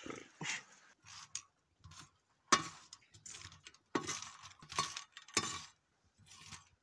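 A metal spoon scraping and stirring peanuts in their shells across a black iron griddle while they dry-roast, in a series of separate strokes about one a second, the shells rattling against the metal.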